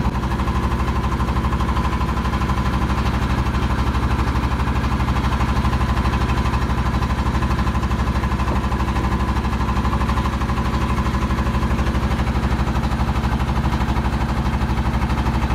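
Engine of a wooden lake boat running steadily underway, with a fast, even chugging beat.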